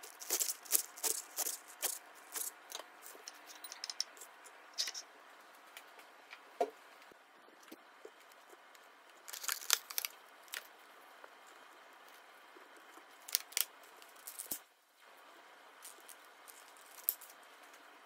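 Kitchen knife chopping lettuce on a plastic cutting board: a quick run of crisp cuts, about three a second, over the first few seconds. After that come a few scattered light knocks and taps as fruit is set down on the board.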